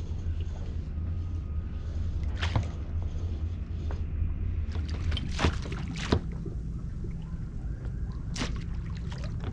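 Water sloshing and splashing around an inflatable dinghy as a child plays in it and dips a paddle into the water, with a handful of sharp knocks or splashes. A steady low hum runs underneath.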